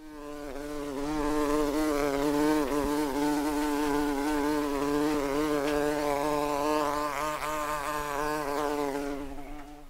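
Wasp buzzing: one steady droning buzz that wavers slightly in pitch, fading in at the start and fading out near the end.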